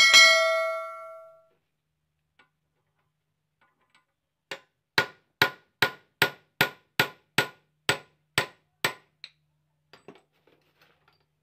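A steel hammer strikes metal once with a ringing tone that dies away over about a second. After a pause come eleven sharp, evenly paced hammer blows, about two a second, on a drift set on a car tie rod end clamped in a bench vise.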